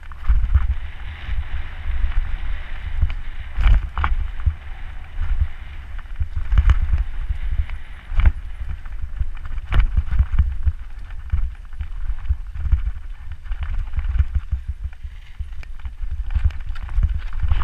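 Downhill mountain-bike run heard from a helmet camera on a Canfield Brothers Yelli Screamy 29er hardtail: heavy wind buffeting on the microphone, a steady hiss of tyres on loose dirt, and frequent sharp knocks and rattles as the bike hits bumps and rocks.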